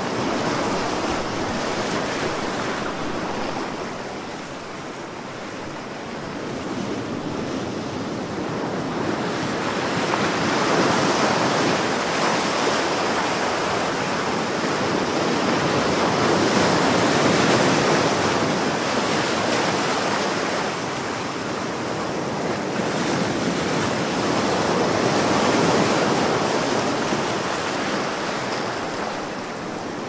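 Ocean surf: waves breaking and washing in as a continuous rush of water that swells louder and eases back every several seconds.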